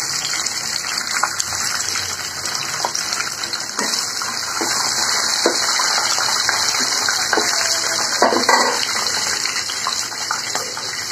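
Peanuts frying in hot oil in a kadhai: a steady sizzle with scattered small crackles.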